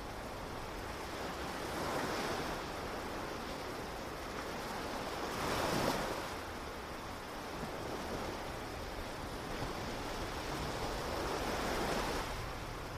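Ocean surf: waves washing in, the sound swelling and fading every few seconds, the biggest swell about six seconds in.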